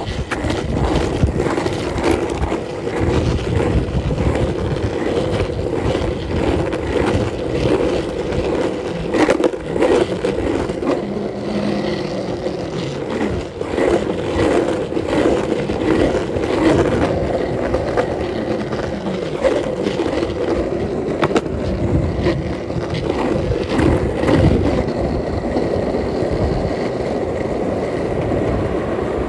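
Skateboard wheels rolling steadily over asphalt, with frequent clicks and knocks as they cross cracks and seams in the roadway.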